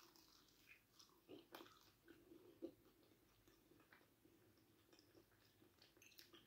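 Faint crunches of pastry as a warm beef and vegetable pasty is bitten into and chewed: a few small crisp sounds.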